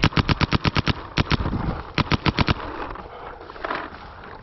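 Paintball marker firing in quick strings: about ten shots in the first second, two more right after, then a burst of about five about two seconds in.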